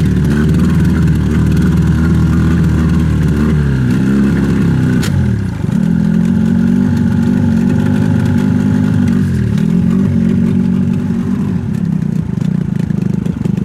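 Engine running steadily under a little throttle. Its note dips and comes back up about four seconds in, again later, and near the end.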